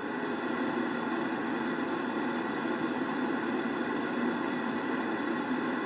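A received CB radio channel playing from a Yaesu transceiver's speaker, tuned to 27.005 MHz: a steady hiss and rumble of noise with faint steady whistles and no voice.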